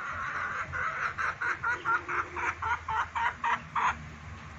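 A chicken clucking in a fast run of about a dozen short, even clucks, roughly four a second, which stops near the end.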